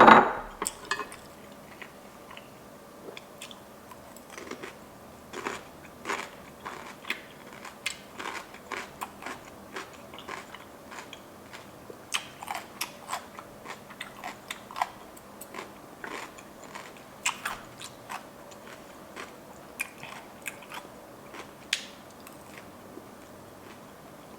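A person chewing and biting food, with irregular crunchy mouth clicks throughout and a louder burst right at the start.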